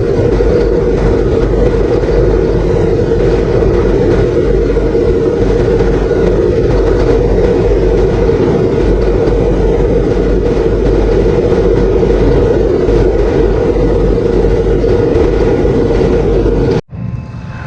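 Vehicle engine running steadily under way. Near the end it cuts off suddenly and a different, quieter engine sound follows.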